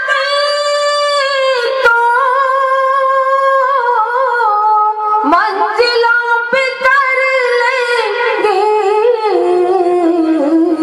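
A woman singing a line of Urdu poetry in tarannum, drawing it out in long held notes with wavering ornaments and few clear words. The melody steps down to lower notes near the end.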